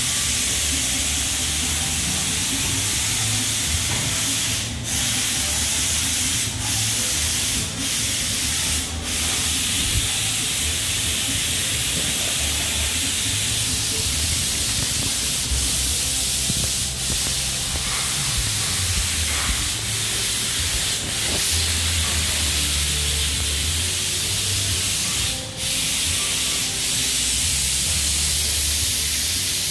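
Steady hiss of factory floor background noise with a low hum underneath, dipping briefly a few times.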